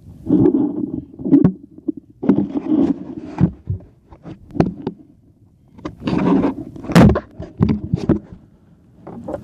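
Muffled rubbing and knocking of a smartphone in a waterproof case swinging against the wearer's shirt and chest. It comes in three or four irregular bursts with short quiet gaps, the longest gap about four to five and a half seconds in.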